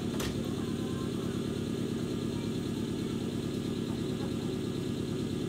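Steady low hum of a stationary electric train's onboard equipment. A single sharp click comes a fraction of a second in.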